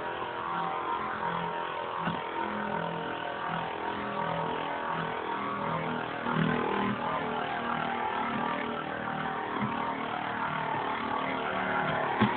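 Two Beyblade spinning tops whirring steadily as they spin in the stadium, with a few sharp clacks when they knock into each other.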